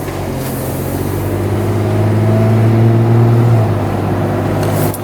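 Car engine running steadily with a low drone that swells toward the middle and then eases off.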